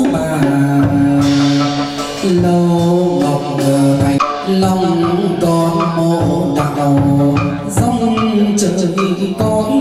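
Chầu văn ritual music: a melody moving in long held notes over a steady percussion beat.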